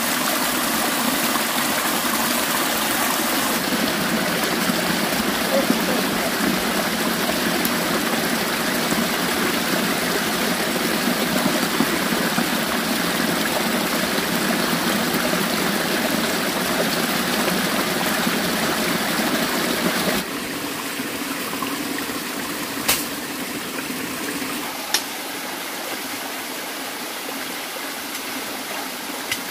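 Steady rush of running water, dropping to a quieter, thinner rush about twenty seconds in, with a couple of brief ticks near the end.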